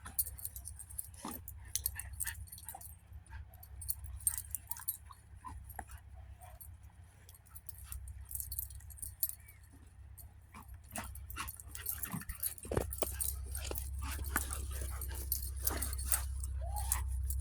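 Two puppies playing in fresh snow: scattered small clicks and jingles, with a short whimper near the end, over a steady low rumble that grows louder in the last third.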